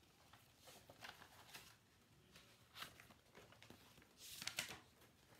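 Faint rustling and light scraping of paper as a brailled picture book is handled and its page turned, in a few short bursts, the loudest about four seconds in.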